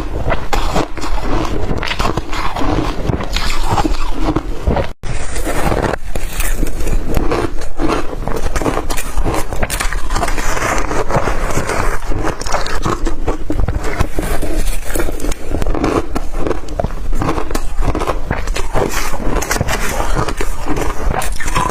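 Close-up crunching of blender-crushed ice being bitten and chewed, a dense run of crackling crunches with a brief break about five seconds in.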